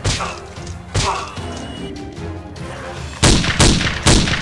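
Dubbed-in gunfire and impact sound effects over background music: one hit at the start and another about a second in, then a quick run of four shots near the end.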